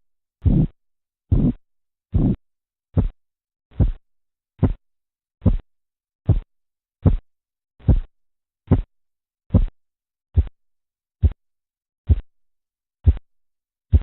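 Korotkoff sounds heard through a stethoscope over an artery as a blood pressure cuff deflates: a regular pulse of thumps a little faster than one a second. The thumps are long at first and grow steadily shorter.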